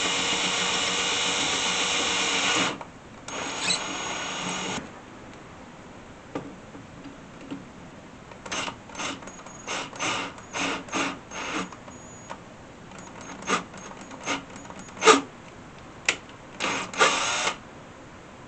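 Ryobi cordless drill running steadily while drilling through the plastic of a fuel pump module, stopping about three seconds in. A second, quieter run follows briefly, then a string of short bursts and clicks from the drill.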